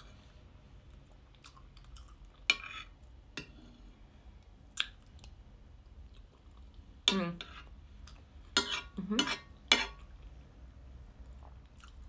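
Close-miked eating of angel cake in custard: a metal spoon clicks and scrapes on the plate, with wet chewing. A few short hummed sounds from the eater come about two-thirds of the way in.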